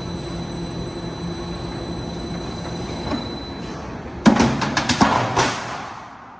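Corrugated steel silo-panel roll forming machine running with a steady hum and a faint high whine, then about four seconds in a loud burst of sheet-metal clattering and knocks that dies away.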